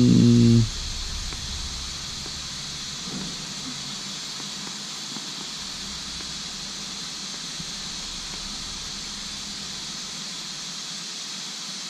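A steady hiss, with a short low humming tone that stops early on.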